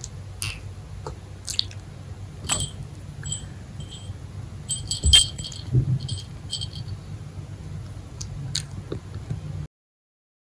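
Kitten biting and chewing at a toy, with scattered small clicks and short light jingles over a low steady hum. The sound cuts off abruptly near the end.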